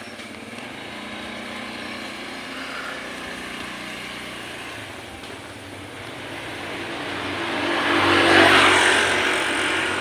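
A motor vehicle passing, its engine and road noise growing louder to a peak about eight and a half seconds in, then easing off.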